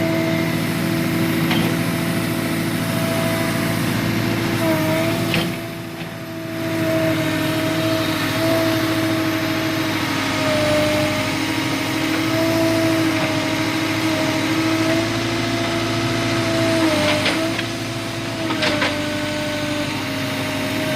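Tractor loader backhoe's diesel engine running steadily, its pitch wavering slightly as it works. The level drops briefly about six seconds in, and a few sharp knocks come near the end.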